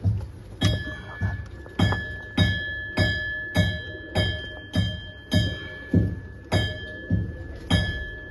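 Background music with a steady beat, a low thump with a bell-like chime a little under twice a second.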